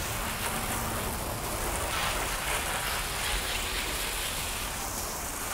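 Water spraying from a garden hose's pistol-grip nozzle onto a car's paint and the pavement: a steady hiss of spray rinsing soap off the car.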